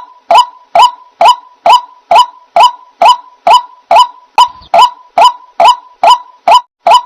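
White-breasted waterhen calls repeated at a perfectly even pace, about two short loud notes a second, each sliding up into a brief steady note.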